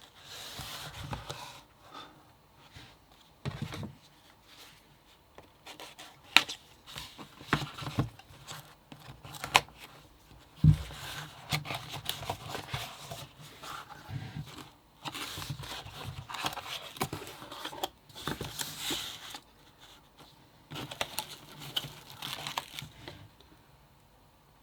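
Hands handling packaging and small parts: irregular bursts of plastic crinkling and rustling, broken by sharp clicks and taps, with a dull knock about eleven seconds in.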